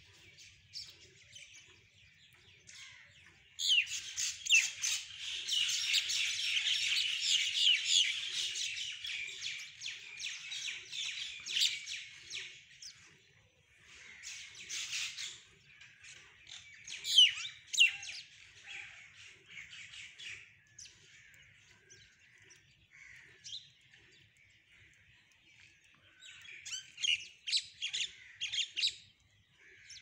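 A flock of birds chirping and squawking: a dense burst of chatter starts about four seconds in and runs for some nine seconds, followed by scattered calls and another short burst near the end.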